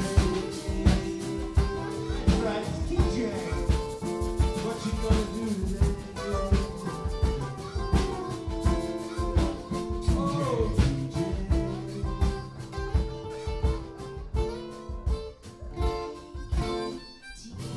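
Live acoustic blues band playing: a harmonica played into a microphone, with bent notes, over acoustic guitar and steady percussion.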